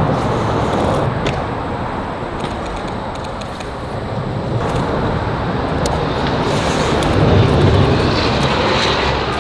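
Steady rumble and rush of road traffic on the highway bridge overhead, swelling about two-thirds of the way through.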